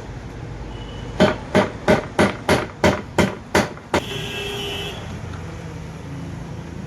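A hammer tapping on metal, about nine sharp strikes at a little over three a second: a bearing being knocked into place on an electric hand planer. The tapping stops about four seconds in and is followed by about a second of steady noise.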